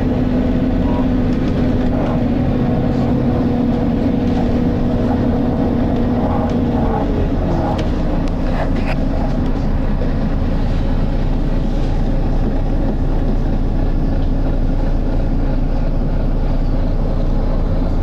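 Volvo B9TL double-decker bus on the move, heard from inside: its engine cooling fan is on, and a steady whine over a constant low rumble drops in pitch about seven seconds in.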